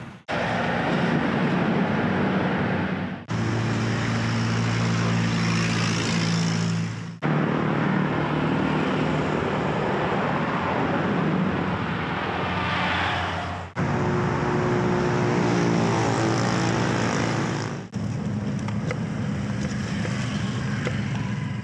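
Motor vehicle engines and road traffic noise, a steady din with a low engine hum, broken into several separate stretches by abrupt cuts.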